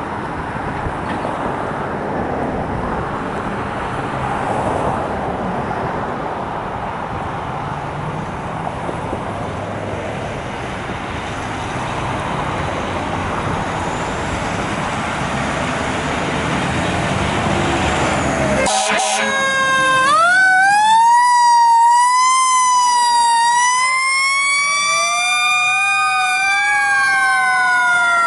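Fire apparatus diesel engines running as the rigs pull out, a steady rumble. About two-thirds of the way in, sirens start wailing, with more than one wail rising and falling in pitch out of step with the others.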